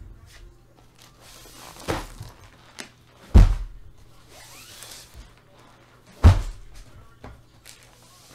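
Things being handled and set down on a table: three dull thuds, the middle one loudest, with rustling and sliding between them.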